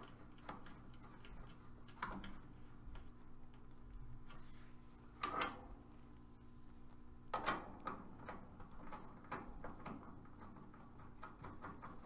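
Scattered small metallic clicks and clinks of brass refrigerant-hose fittings being handled and threaded onto the service valve fittings, with louder clacks about two, five and seven and a half seconds in, over a faint steady hum.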